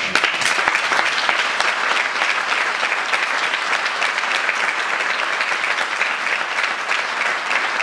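Audience applauding: dense, steady clapping from a crowd that breaks out suddenly.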